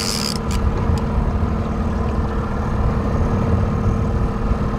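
Boat engine running steadily at trolling speed: a constant low rumble with a steady hum, with a couple of faint clicks in the first second.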